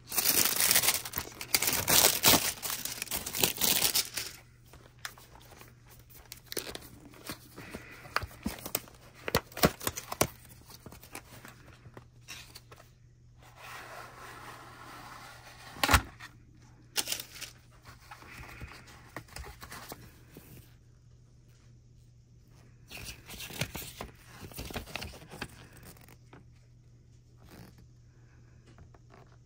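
Clear plastic shrink wrap being torn and pulled off a small cardboard box, a loud crinkling tear for the first four seconds or so. After that come quieter rustles and handling taps as the box is opened, with one sharp tap about sixteen seconds in.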